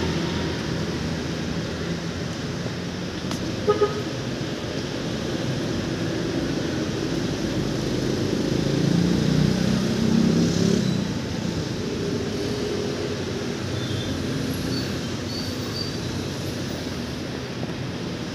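Steady street traffic noise, with a short double toot of a vehicle horn about four seconds in.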